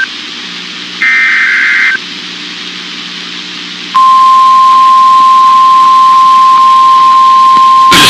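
Emergency Alert System test signal: the end of one burst of digital header data, another one-second burst about a second in, then low hiss, and from about halfway a loud, steady single-pitch attention tone. Loud static rises under the tone at the very end.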